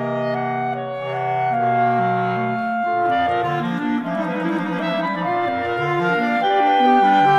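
A clarinet quartet playing. At first held notes sit over a sustained low note, then from about three seconds in the lower parts break into quicker moving figures under a held high note.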